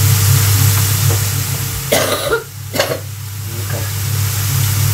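A person coughing twice, short and sharp, about two and three seconds in, over a steady low hum.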